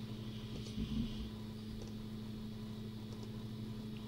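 Steady low hum of background noise with a few faint mouse clicks.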